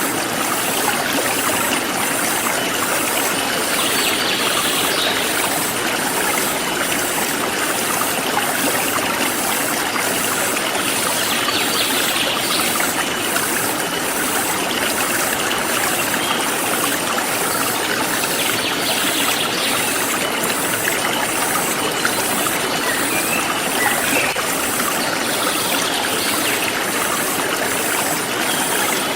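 Forest stream flowing steadily over rocks, with insects chirping high in an even pulse of a little more than one beat a second, and a few brief bird calls.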